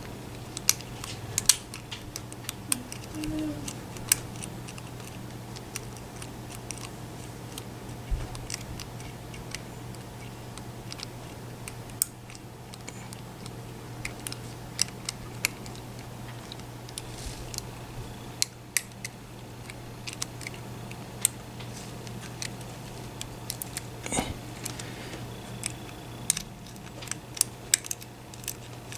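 Small metal clicks and scrapes of a lock pick working inside a lock's keyway, coming in irregular sharp ticks, over a steady low hum.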